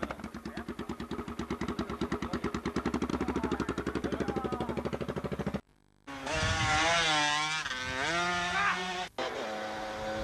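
An engine ticking over with a fast, even pulse. After a short break, a two-stroke racing motorcycle goes by at speed, its engine note rising and falling repeatedly as the rider works the throttle and gears through the bends.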